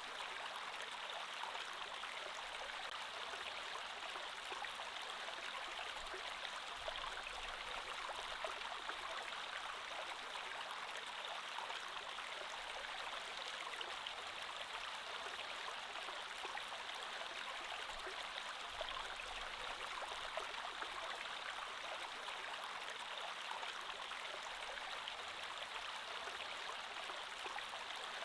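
Creek water flowing steadily, an even rushing and babbling that stays the same throughout.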